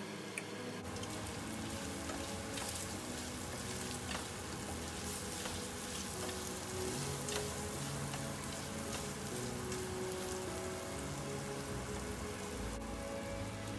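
Pork rib pieces and spring onion sizzling in oil in a frying pan, a steady crackling hiss with scattered sharp pops, and a spatula stirring them partway through. Background music plays underneath.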